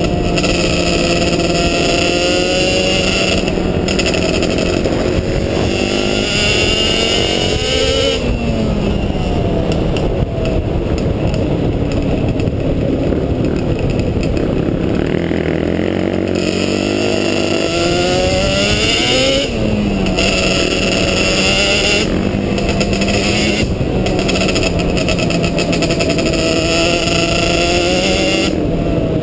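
Quad (ATV) engine running hard while being ridden, its pitch rising and falling again and again as the throttle is worked and released, with a lower, rougher stretch in the middle.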